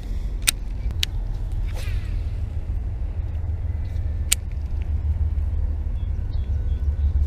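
Steady low rumble on the chest-worn camera's microphone, with three sharp clicks (two in the first second, one about four seconds in) and a brief rustle near two seconds.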